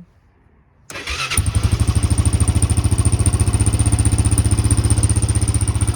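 The bike's engine cranks on the electric starter about a second in, catches half a second later and runs steadily with an even beat: a cold start with the choke held on.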